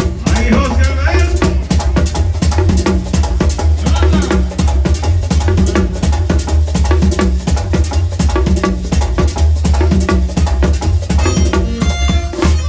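Merengue típico band playing: a fast, even beat of rattling scraper and drum strokes over a heavy bass line.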